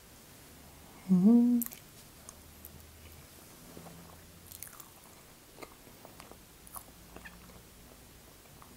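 A woman's pleased "mmm" hum about a second in, the loudest sound, then soft chewing and small mouth clicks as she eats a bite of chocolate mousse cake.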